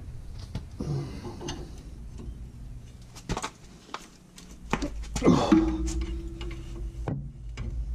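Socket wrench clicking and knocking against the rear brake caliper as it is fitted to and worked on the caliper bolts: scattered sharp metal clicks. A steady hum starts about five and a half seconds in.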